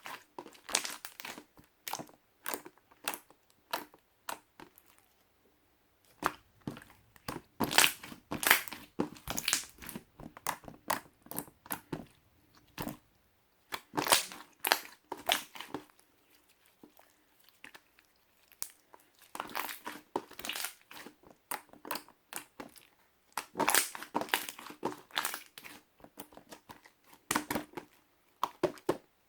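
Pink slime being squished and pressed by hand, giving off clusters of sticky clicks and pops with short pauses between handfuls.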